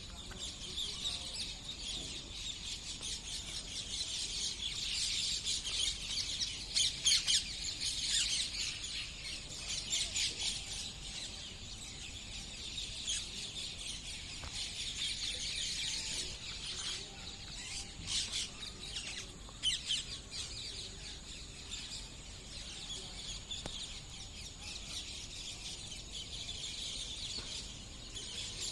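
Parrots chirping, a dense unbroken stream of high chirps that swells and eases without stopping.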